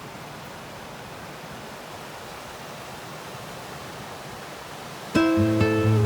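Steady rushing of a waterfall. About five seconds in, louder acoustic guitar music starts abruptly.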